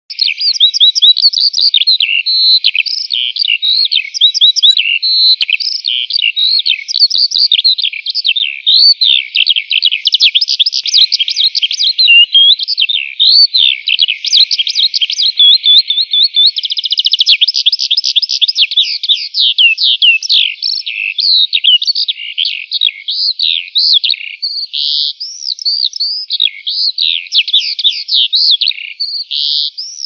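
Songbirds singing: a continuous, dense run of rapid high chirps, trills and short up-and-down whistles, with no low sound underneath.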